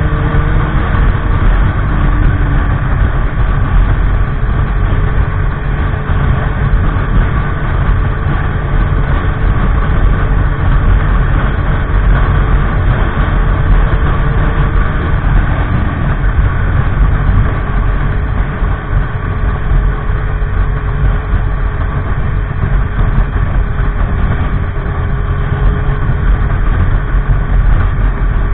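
Motorcycle underway, its engine running steadily with a dense rushing noise, and a faint tone that drifts slightly in pitch.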